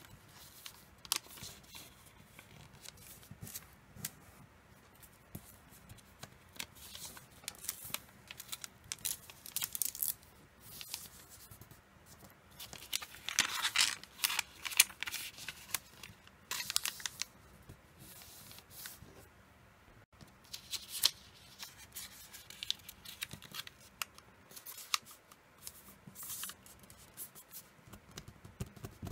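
Origami paper rustling and crinkling as it is folded and creased by hand, in irregular crisp rustles and clicks. The loudest run of rustling comes about halfway through.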